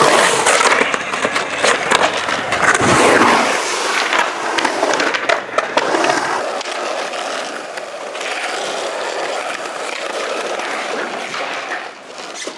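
Skateboard wheels rolling and carving over a concrete skatepark, a continuous rough rolling noise with a few sharp knocks in the first half.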